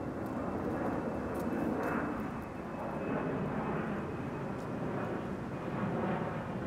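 Airliner passing overhead: a steady low rumble that swells and eases slightly.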